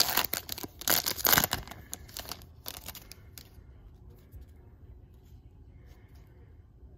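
Foil trading-card pack being torn open and crinkled, loudest in the first second and a half, then trailing off into faint rustling by about halfway through.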